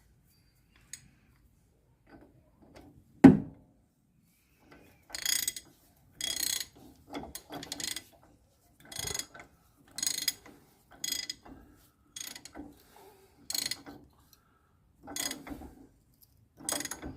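Socket ratchet wrench worked back and forth: a sharp clack about three seconds in, then about a dozen short rasping ratchet strokes, roughly one a second.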